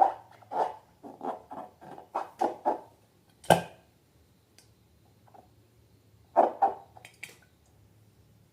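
Slime being squeezed and worked by hand: a quick series of short squelches for about three seconds, one sharp click, then a pause and two more squelches near the end.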